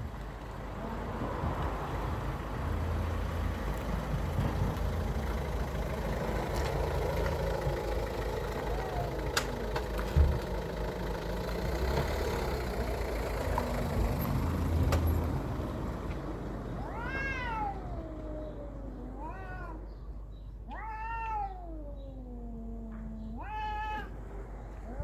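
Cats yowling at each other in a fight standoff. Long drawn-out wails run under a steady background of noise with a low rumble. In the last several seconds, four distinct yowls each rise and then slide down in pitch.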